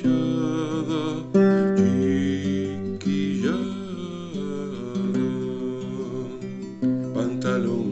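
A man singing to his own classical guitar, strummed in chords, his voice wavering with vibrato on held notes. There are fresh strums about a second and a half in, about three seconds in, and near the end.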